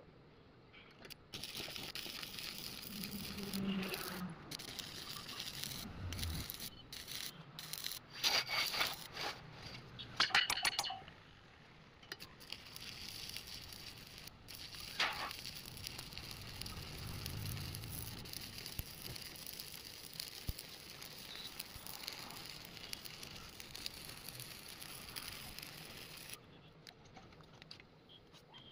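Electric arc welding: a steady crackling hiss that starts about a second in and stops abruptly near the end, with a few louder bursts along the way.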